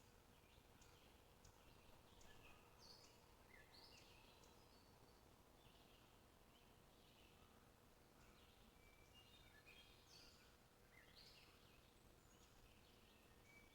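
Faint birdsong: short high chirps and brief whistled notes from birds, coming every second or so, over a soft steady hiss.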